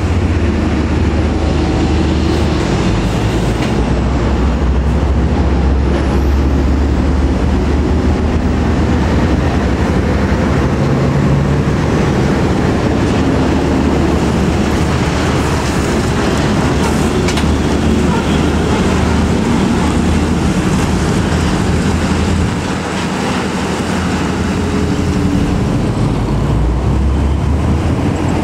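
Heavy diesel trucks, UD Quester tractor units and a Hino Ranger, driving past close by one after another. They make a deep, steady engine sound with loud tyre noise on the road, and the level dips briefly about three quarters of the way through.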